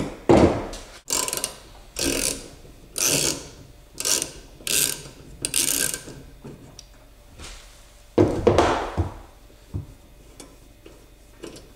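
Hand ratchet clicking in a run of short back-and-forth strokes as a nut is turned off a bolt: about seven quick strokes over the first six seconds, one longer stroke around eight seconds in, then a few light ticks.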